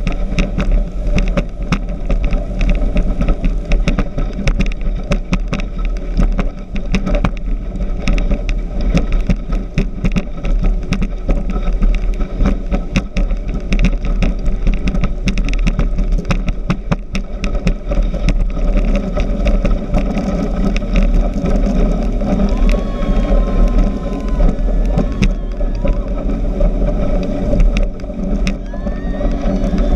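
Speedboat running fast over the water: a steady engine rumble under a dense, continuous crackle of knocks and buffeting.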